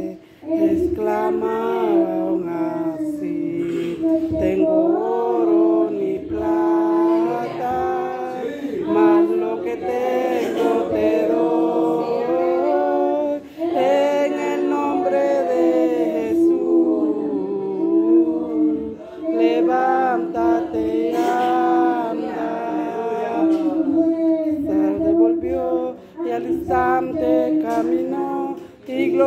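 Young boy singing solo into a microphone, apparently without instrumental accompaniment. He holds long notes in phrases, with short breaks between them.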